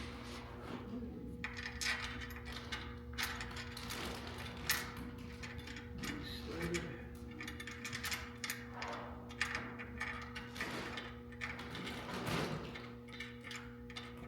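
Irregular clicks, clacks and knocks of stand parts and hardware being handled and fitted together, with one sharper knock about five seconds in, over a steady low hum.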